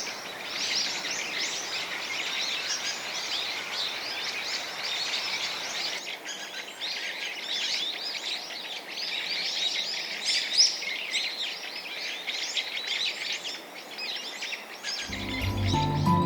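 Many birds chirping at once, a dense stream of short, high overlapping calls. Music comes in about a second before the end.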